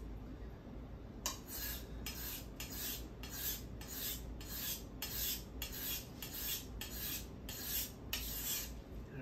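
Kitchen knife blade stroked back and forth across a wet whetstone: a rhythmic scraping of about two strokes a second, starting about a second in. The front of the blade is being worked to raise a burr along the edge.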